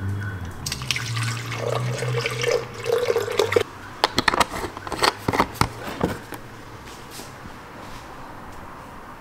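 Milk pouring from a carton for about three seconds, followed by a run of sharp clicks and light knocks.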